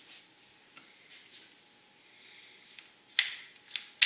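Bicycle handlebar grip being worked back onto the handlebar, with faint rubbing, then sharp clicks about three seconds in and again just after.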